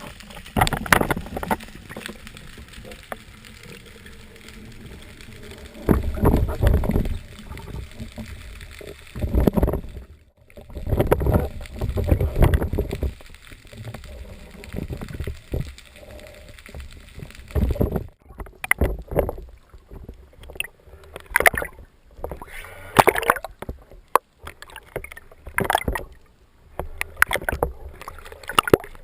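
Water sound picked up by a camera during a spearfishing dive: irregular swells of low water noise, with sharp knocks and clicks coming thicker in the second half.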